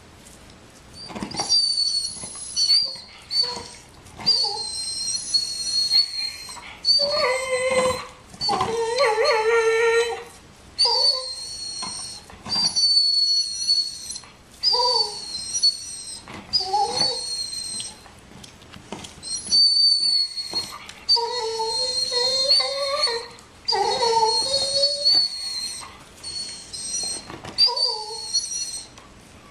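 A dog whining over and over in high, thin, wavering whines, with lower drawn-out howling cries mixed in and brief pauses between: the begging whine of a dog jealous of another dog's bone.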